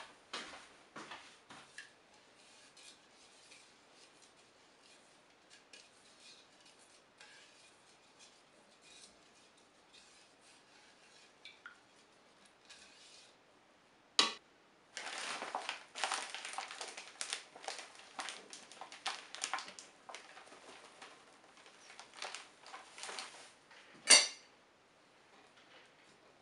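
Kitchen utensils working in a plastic mixing bowl: a few clinks of a spoon in the first two seconds and light scattered taps and scrapes, then a silicone spatula stirring the liquid briskly, a dense run of scrapes and taps against the bowl. A single sharp knock comes about two seconds before the end.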